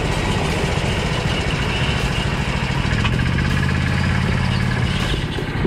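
Tamiya Super Clod Buster RC monster truck running, its twin 550 brushed electric motors driving it, with a steady low rumble throughout.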